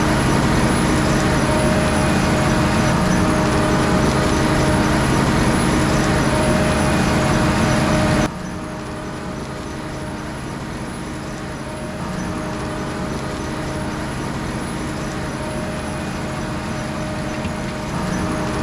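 Potato-harvesting machinery running: a steady engine drone from the harvester and tractors. About eight seconds in it suddenly drops in loudness, then stays steady.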